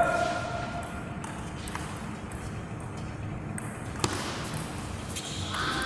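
Table tennis ball clicking off bats and the table in a few light knocks, the sharpest hit about four seconds in. A voice calls out at the start and again near the end.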